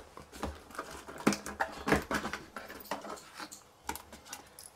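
Small cardboard box being handled and its lid opened: a run of irregular taps, knocks and scrapes, the loudest in the first two seconds, fewer and lighter after.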